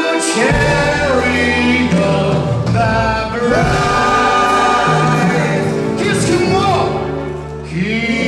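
Live wedding band playing a song, with sung vocals over a held bass line.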